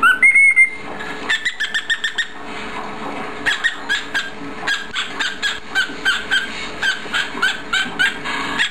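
Cockatiel whistling a short rising note, then chattering in a long run of quick, short chirps.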